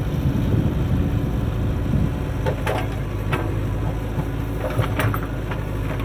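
JCB 3DX backhoe loader's diesel engine running steadily as the backhoe digs, with scattered clanks and knocks of the bucket and arm in the soil from about two and a half seconds in.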